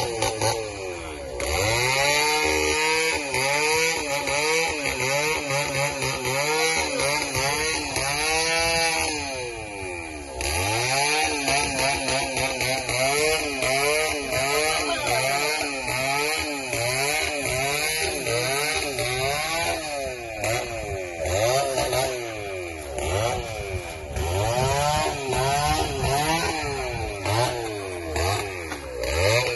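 Two-stroke chainsaw engine revving up and down over and over, its pitch rising and falling every second or two.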